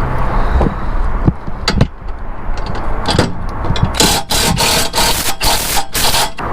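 Drill tightening a loose exhaust bolt, run in about five short bursts near the end, after a few scattered knocks.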